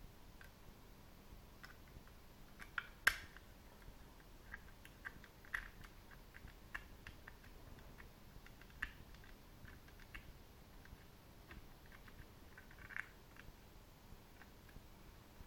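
Faint, scattered small clicks and ticks of a precision screwdriver turning the tiny screws in the plastic underside of a Microsoft Wireless Mobile Mouse 3500, with handling of the plastic shell. The sharpest click comes about three seconds in.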